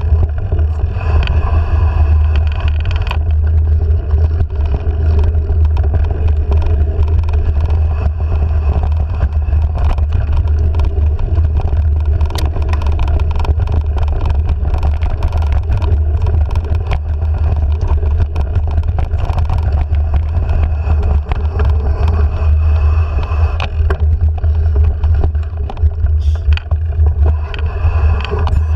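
Steady low rumble of wind and vibration on a handlebar-mounted action camera while riding a dirt singletrack trail, with many small knocks and rattles from bumps in the trail.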